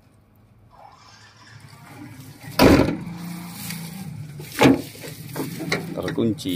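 Rustling and handling noise while moving through undergrowth beside an abandoned truck, with two loud thuds a couple of seconds apart and then a run of short knocks.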